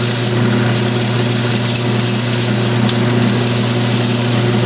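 Wood lathe running at speed with a steady motor hum, a handheld turning tool cutting the spinning duck-call blank and adding a constant hiss of shavings.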